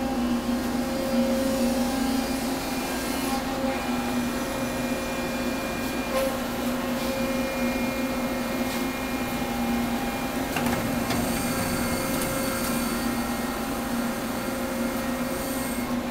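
Steady hum of industrial machinery at a hydraulic forging press: a low drone with a higher tone over it, and a little more hiss from about eleven seconds in.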